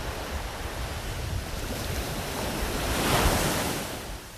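Waves washing onto a beach, one surge swelling to its loudest about three seconds in and then receding, with wind rumbling on the microphone.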